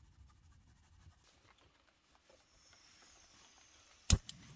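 Faint, quiet handling sounds with small clicks, then a single sharp knock about four seconds in.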